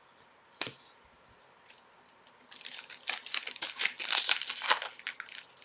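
A light tap about half a second in, then a hockey card pack's foil wrapper being torn open and crinkled, a dense run of crackling that peaks near the end.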